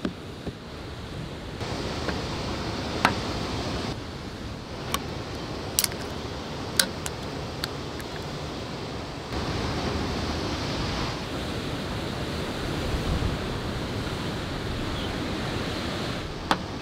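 Steady sea surf and wind, with a series of sharp clicks and taps: a cooler lid at the start, then a drink can handled and its tab pulled open. A last click comes near the end.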